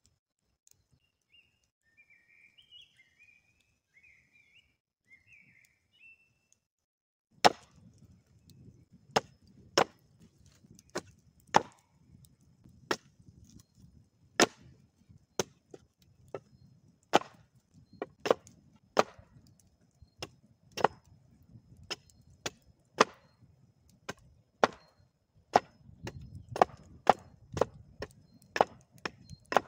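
A hatchet chops at an upright stick resting on a wooden board, giving sharp wooden knocks at an uneven pace of roughly one a second. The chopping starts about seven seconds in, after near silence.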